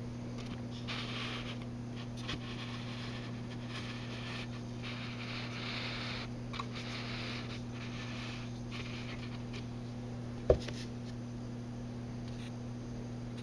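Steady low electrical hum with soft scratchy rustling on and off, and a single sharp tap about ten seconds in.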